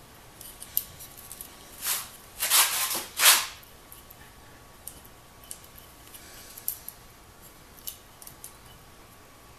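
Hand work at an electric motor's wiring terminal box: a few short scraping rustles of wires and metal parts being handled, loudest about two to three seconds in, then scattered light clicks and taps, typical of a screwdriver on terminal screws.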